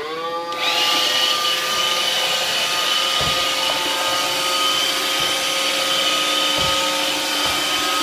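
iRobot Roomba 580 robot vacuum starting a cleaning run with its newly replaced side-brush motor working again. Its motors spin up with a rising whine in the first half second, then run steadily with a whine and hiss from the fan and brushes. There are two faint low thumps partway through.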